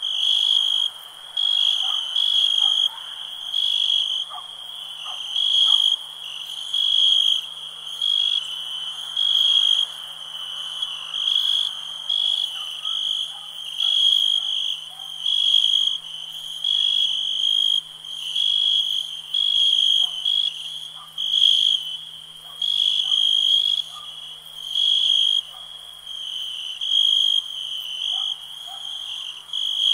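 Night chorus of crickets and frogs: a high chirping trill that pulses in regular bursts about every second and a half, over fainter scattered short calls lower down.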